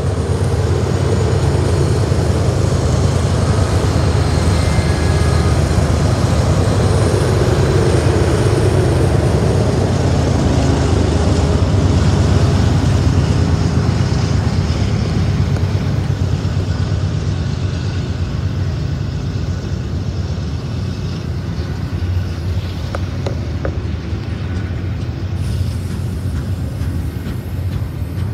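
BNSF double-stack container freight train passing close by on the rails. The low rumble of its diesel locomotives going past is loud at first and eases off after about fifteen seconds as the stacked container cars roll by with a steady rolling noise.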